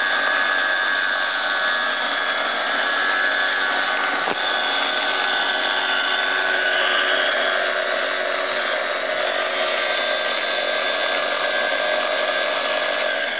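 Small battery-powered electric motor of a toy boat running out of water, spinning its propeller in the air with a steady whine. It cuts off suddenly near the end.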